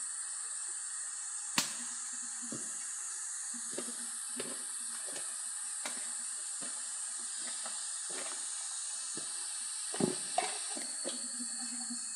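Tropical forest ambience: a steady high insect drone, with scattered light knocks and rustles of a person moving about camp on dry leaf litter. The loudest knocks come about a second and a half in and twice near ten seconds in.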